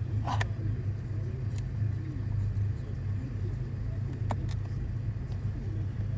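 Steady low rumble, with a few sharp clicks of wire cutters cutting through tough wiring: two just after the start and one about four seconds in.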